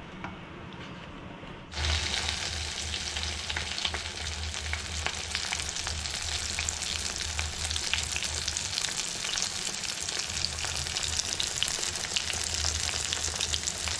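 Masala-coated brinjal (eggplant) slices frying in hot oil, sizzling with dense crackling and spitting. The sizzle starts abruptly about two seconds in and then runs on steadily.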